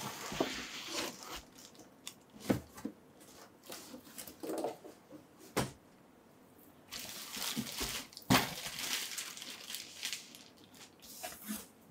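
Packaging being handled and unwrapped: packing material crinkling and rustling in irregular bursts, with three sharp knocks spread through it.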